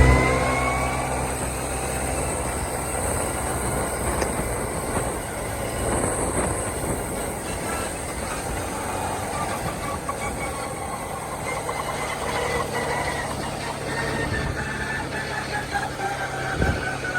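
A motor vehicle's engine picking up speed at the start, then running steadily under way, with road noise and scattered knocks from riding over rough ground.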